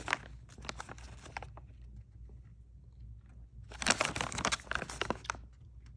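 Close crackling and crinkling from someone eating a soft blue raspberry chew, with the candy wrapper handled. There are two spells, one in the first second and a half and a denser one about four seconds in, with a quiet gap between.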